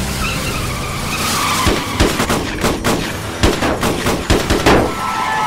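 Action-scene sound effects: a car engine running with tyres squealing, then a rapid, irregular burst of roughly fifteen gunshots over about three seconds, starting a little under two seconds in.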